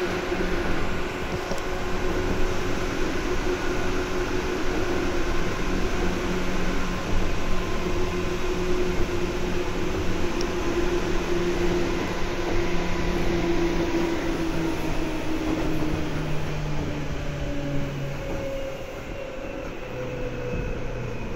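Seibu 2000 series electric train heard from inside the car, running and slowing down. Its motor and gear whine falls steadily in pitch over the rumble of the wheels on the rails.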